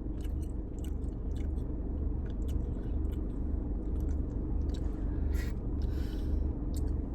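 Close-up chewing and mouth sounds of someone eating a teriyaki chicken plate: many short, scattered wet clicks over a steady low hum.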